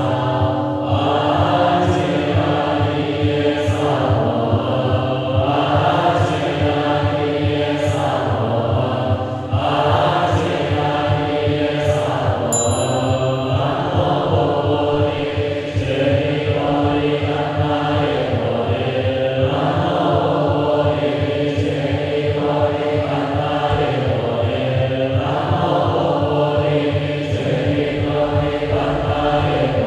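Background music of chanting voices, long held notes sung in slow repeating phrases.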